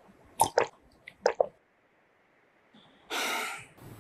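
Commercial sound effects of drinking and plating food: a few short wet squelches and gulps in the first second and a half, then a brief hissing swoosh about three seconds in.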